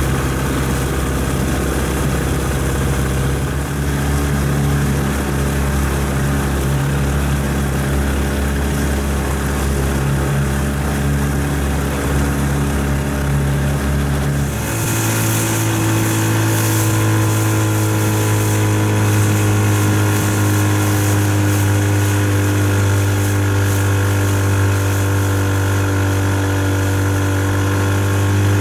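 Boat engine running steadily. About halfway through, the engine note changes suddenly to a higher, steadier pitch and a hiss of wind or water comes in above it.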